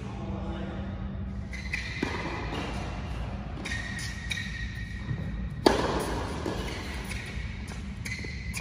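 Tennis balls struck by a racket: a few sharp pops, the loudest about two-thirds of the way through, echoing in a large indoor tennis hall.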